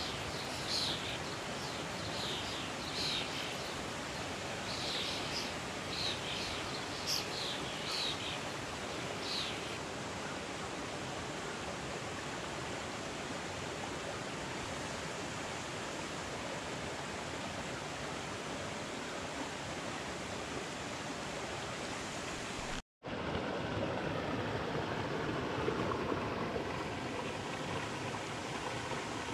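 Steady rush of a small rocky stream tumbling over stones. In the first third, about ten short high-pitched sounds come over it. Near two-thirds through, the sound drops out for an instant.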